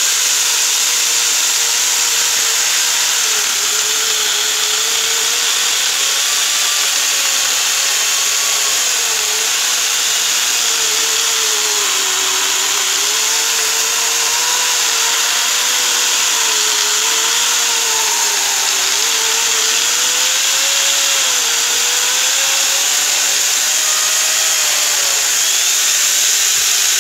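Electric angle grinder fitted with a chainsaw bar-and-chain attachment, running continuously as its chain cuts through a log. The motor's pitch sags and recovers as the load on the chain changes.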